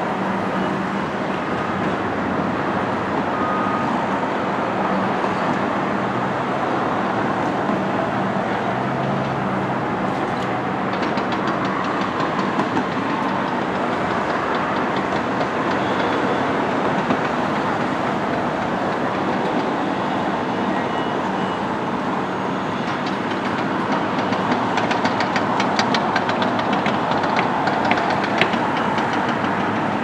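Heavy construction machinery running: a steady din of engines with a low hum, joined about ten seconds in by rapid metallic clattering that grows busier and a little louder in the last third.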